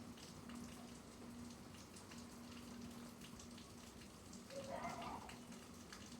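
Rain falling, with many separate drops ticking. A faint low hum comes and goes, and a short, louder sound stands out about four and a half seconds in.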